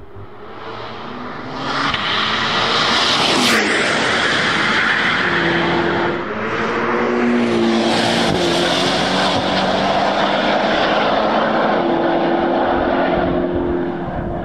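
Camouflaged Corvette C8 ZR1 prototype's 5.5-litre turbocharged LT7 V8 at speed on a race track, passing and pulling away. It gets louder about two seconds in and drops quickly in pitch a moment later, then holds a strong, steady, high engine note.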